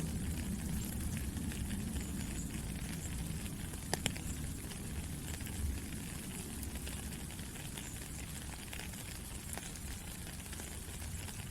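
Steady rain falling: a dense even hiss with a low rumble and many small drop ticks, and one sharper tap about four seconds in.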